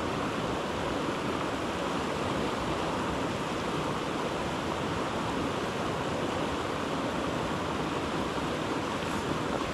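Creek water rushing steadily over a shallow rocky riffle, an even, unbroken wash of noise.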